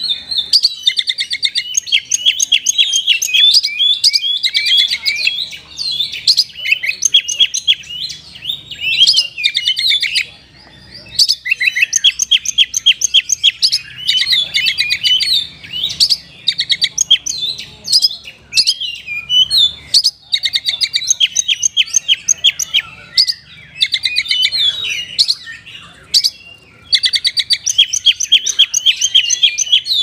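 Oriental magpie-robin singing loudly in a long, fast, varied song of rapid trills and repeated high notes, broken by brief pauses about ten, twenty and twenty-six seconds in.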